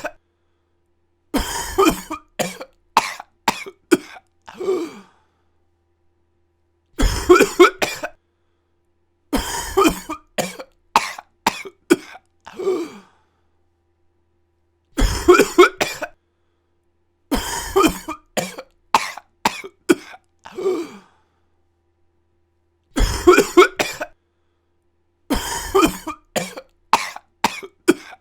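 A person coughing in fits: a short cough, then a run of five or six coughs that trail off, with silence between fits. The same pattern comes back about every eight seconds.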